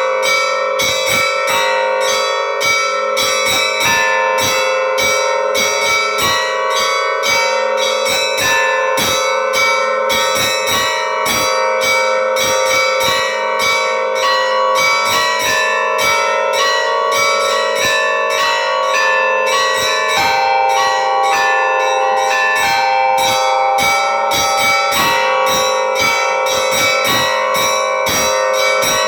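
Church bells being rung together: small bells struck in quick succession, several strikes a second, over the steady ringing of larger bells. The lower tones change pitch about two-thirds of the way through.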